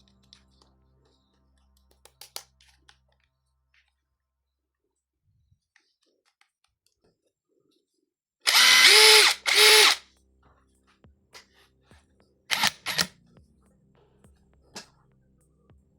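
Dagmara DTD173 cordless impact driver motor running in short trigger pulls: two of about a second each, spinning up and back down, then two quick blips a few seconds later.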